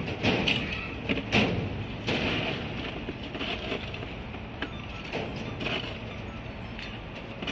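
Steady low hum of street traffic, with a few sharp knocks and clinks of cups and utensils being handled at a drinks cart in the first two seconds, and fainter ones later.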